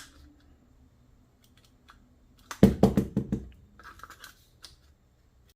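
Hard handling clicks and clacks of an airsoft pistol magazine and its parts: a few faint clicks, then a quick run of about six sharp clacks about two and a half seconds in, followed by a few lighter clicks.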